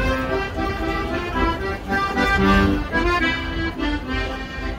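A street musician's accordion playing a tune, with a run of changing melody notes over held lower notes.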